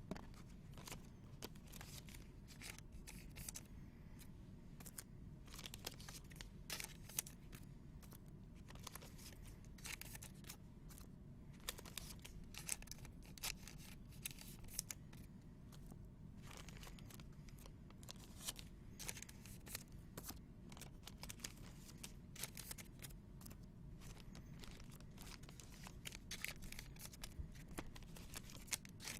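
Faint rustling, sliding and clicking of trading cards being handled and sorted, with many small irregular scrapes and taps.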